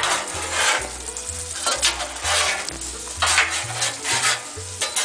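Scrambled eggs sizzling in butter on a Blackstone flat-top griddle, with a spatula scraping and pushing them across the steel in repeated strokes about every half second.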